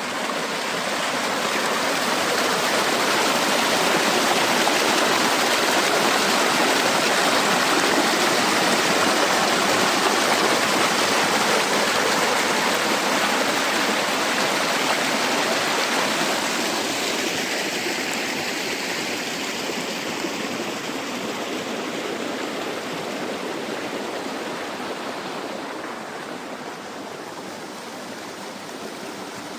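Forest stream rushing steadily, loudest through the first half and gradually fading over the last dozen seconds.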